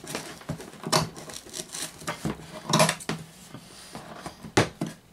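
Scissors and hands working on cardboard and plastic toy packaging: a run of small clicks and rustles, with three sharper snaps about a second in, near the three-second mark and near the end, as the toy is cut free of its box.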